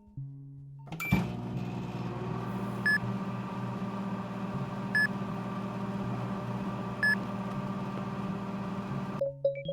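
A click, then a steady machine hum with a short high beep about every two seconds; the hum stops shortly before the end.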